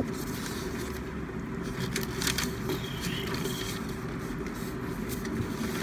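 Steady background hum and hiss of a room, with a couple of faint brief noises about two seconds in.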